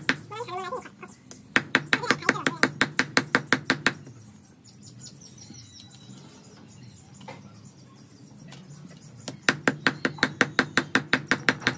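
Large curved knife chopping raw meat into mince on a wooden log block: rapid strikes, about six a second, in two runs with a pause of several seconds between them.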